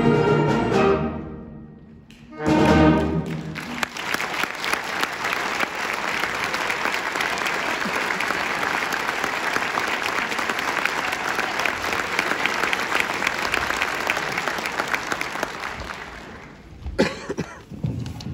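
Concert band of wind and brass instruments ends a piece: a held chord cuts off and dies away, then one short, loud final chord comes about two and a half seconds in. Audience applause follows and fades out near the end.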